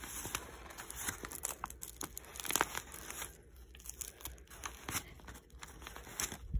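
Thin clear plastic wrap crinkling and tearing as it is peeled off an iPod Classic by hand, in irregular crackles with a louder rustle about two and a half seconds in.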